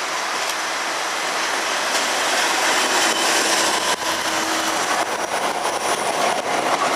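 V/Line N class diesel-electric locomotive passing close by at low speed, making a steady running noise that swells slightly as it draws alongside. Its first passenger carriage rolls past near the end.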